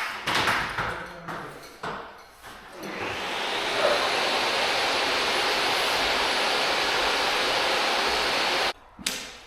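A few knocks, then a steady rushing noise that builds up about three seconds in, holds level and cuts off suddenly near the end.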